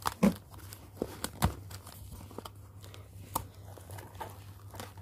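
Cardboard box being handled and pried open by hand: scattered taps, scrapes and crinkles of cardboard and packing tape at irregular moments, over a faint steady low hum.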